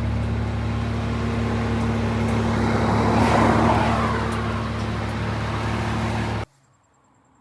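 BMW Z4 35iS's twin-turbo straight-six running steadily on the road, with tyre and road noise that swells about three seconds in. The sound cuts off suddenly about six and a half seconds in.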